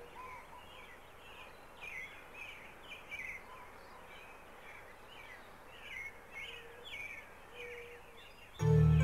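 Woodland birds chirping: a run of short, quick high chirps, several birds calling over one another above a faint hiss. Music comes in loudly shortly before the end.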